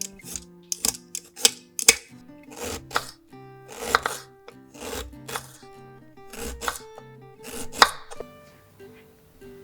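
Kitchen knife chopping on a cutting board in irregular strokes, about one or two a second, that stop about eight seconds in, over background music.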